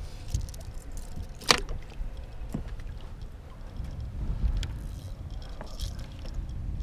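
Low, steady rumble of wind on the microphone in an open boat, with one sharp knock about a second and a half in and a few fainter clicks of gear being handled.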